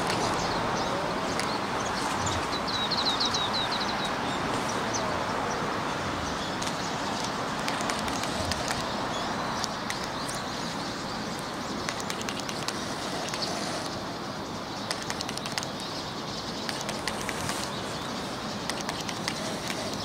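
Steady outdoor background hiss with a quick series of high bird chirps about three seconds in, and scattered faint clicks through the second half.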